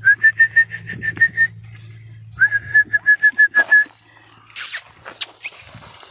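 A person calling puppies with rapid runs of short, same-pitched whistles, about eight pips a second, in two bursts. A few short sharp noises follow near the end.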